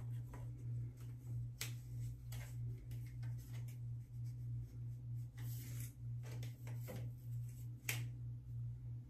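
Hair being handled and wound onto plastic hair rollers: soft rustling with sharp plastic clicks, the loudest about a second and a half in and again near the end. A steady low hum that pulses about twice a second runs underneath.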